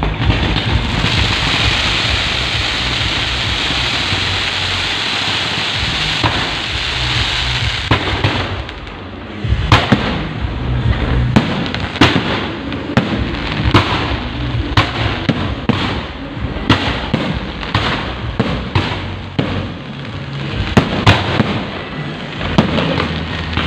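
Firecrackers going off: a dense, unbroken crackle for about the first eight seconds, then, after a short lull, separate sharp bangs at irregular intervals.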